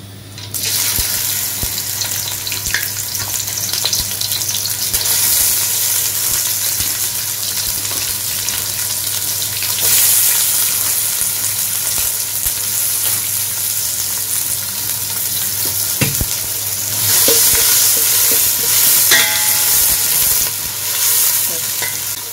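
Sliced onions hitting hot oil in a stainless-steel pot and sizzling steadily as they start to fry, beginning suddenly about half a second in. They are stirred with a slotted steel spatula, with a single sharp knock about two-thirds of the way through.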